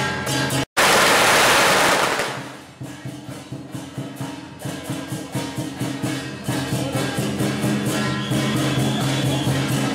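Just under a second in, a loud burst of dense noise lasting about a second and a half breaks in, fitting a string of firecrackers going off, then fades. Around it, a Taiwanese procession band's percussion, with clashing hand cymbals, plays a steady rhythm.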